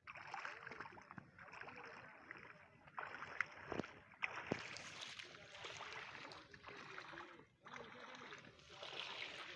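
Small waves lapping at a pebbly lake shore, with wind on the microphone. There are a few sharp clicks or knocks about three to four and a half seconds in.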